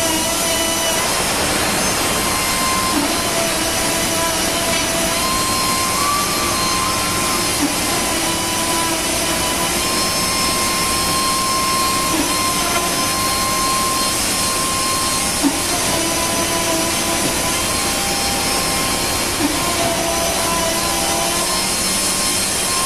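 High-speed router spindle on a Panasonic robot arm trimming a moulded plastic part: a steady, loud machine noise with a whine whose pitch shifts slightly as the cut goes on, and a few short sharp ticks.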